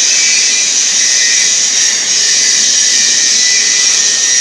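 Electric welding positioner running as its table tilts: a steady, loud, high-pitched hiss with a faint whine, dipping briefly about two seconds in.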